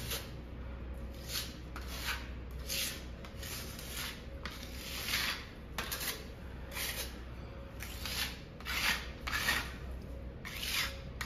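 Metal putty knife spreading and scraping filler over holes in a plaster wall: a run of short rasping strokes, about one or two a second.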